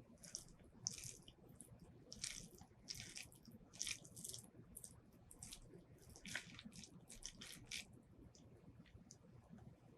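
Close-miked wet chewing and mouth sounds of someone eating braised pork ribs with rice. They come as irregular short, moist smacks and squishes, roughly one or two a second.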